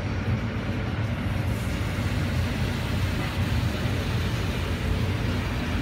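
Car wash high-pressure spray nozzles, running at about 800 psi, blasting water onto a car as a steady hiss over a constant low machinery hum.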